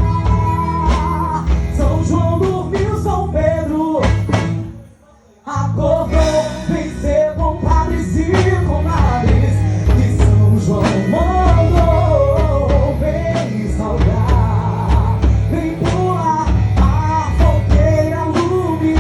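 A song sung with a band accompaniment and a steady beat; the music cuts out suddenly for about a second around five seconds in, then carries on.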